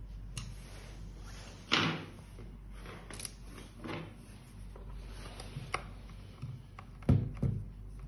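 Scattered clicks and knocks from a small screwdriver and hands working on the hard plastic casing of a handheld videoscope, with a louder scrape about two seconds in and the loudest knock near the end.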